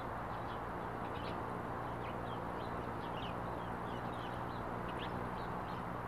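Hummingbird hovering at a nectar feeder: a steady low wing hum under a haze of outdoor noise, with many short, high bird chirps and chips scattered throughout.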